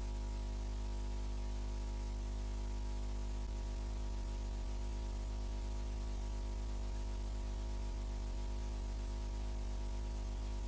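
Steady electrical hum with its overtones, under a constant hiss of static; no sound from the filmed scene itself.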